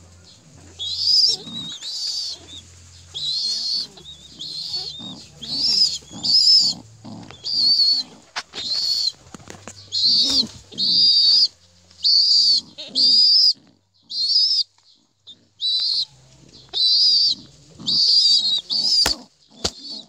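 Young pigeon squabs in the nest calling with short, high-pitched squeaks, repeated roughly once a second: the begging cries of nestling pigeons.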